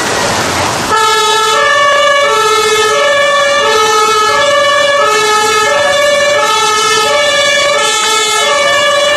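Two-tone German emergency-vehicle siren (Martinshorn) sounding its alternating high-low notes, each held about two-thirds of a second, starting about a second in; a second set of higher alternating tones overlaps it, as from more than one vehicle's horn. Heavy rain hiss is heard before the siren starts.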